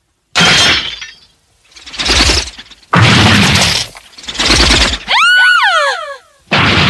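Anime battle sound effects for a giant axe strike: a run of loud crashing impacts, each starting abruptly, with several falling whistling tones about five seconds in.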